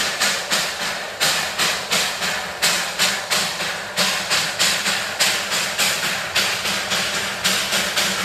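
Darjeeling Himalayan Railway steam locomotive chuffing steadily, about two and a half to three hissing exhaust puffs a second, over a low steady hum.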